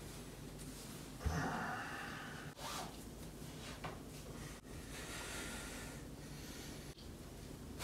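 A man breathing out hard a few times through the nose while stretching, the first and loudest breath about a second in.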